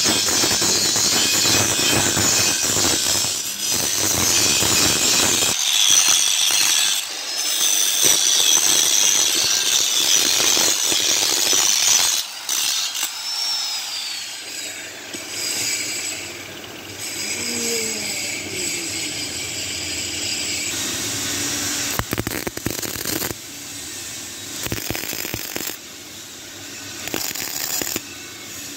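Electric welding of steel leaf-spring seats onto a truck's front axle housing: a steady hissing noise from the arc that shifts in level several times and drops about twelve seconds in.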